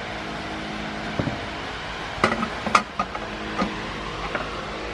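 Metal exhaust pipe being test-fitted to a turbo, clanking and knocking against the metal around it: several sharp knocks, the loudest about two and three seconds in, over a steady mechanical hum.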